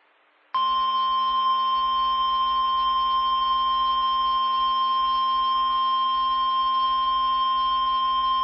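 NOAA Weather Radio 1050 Hz warning alarm tone: a single loud, steady tone that starts about half a second in and holds at one pitch. It signals that an emergency weather warning message is about to be read.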